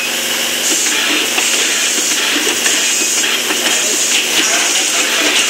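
Automated RFID card inlay machine running: steady machine noise with hissing that comes and goes in short spells about once a second as its head works over the plastic card sheet.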